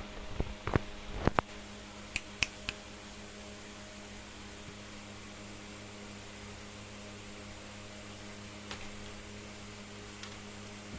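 Kitten batting at and knocking headphones: a quick run of light taps and knocks in the first second and a half, then three sharp thin clicks at about two to three seconds. A steady electrical hum carries on underneath.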